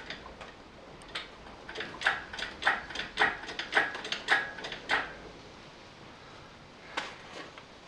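Engine hoist being jacked up, with sharp metallic clicks and squeaks at about three a second for a few seconds and one more click near the end.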